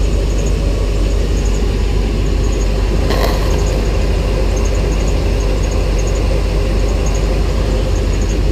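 Motorhome engine running steadily at idle, with a brief burst of noise about three seconds in.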